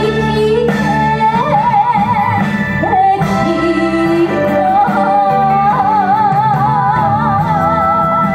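A young woman singing an enka song into a microphone over instrumental accompaniment, holding long notes with a wide, even vibrato.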